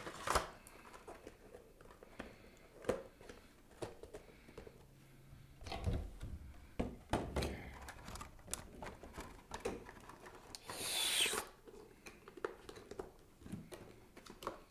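Clear plastic Pop! box protector and packaging being handled: scattered light taps and clicks of plastic, with one longer scraping slide about eleven seconds in.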